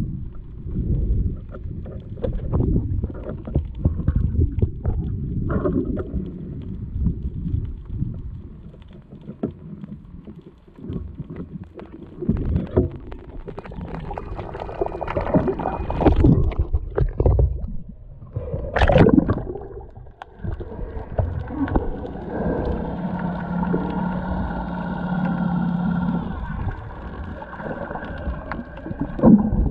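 Water sloshing and knocking against a camera held underwater by a swimming freediver, muffled and irregular, with one sharp burst past the middle. A steady hum with a whine above it runs for several seconds near the end.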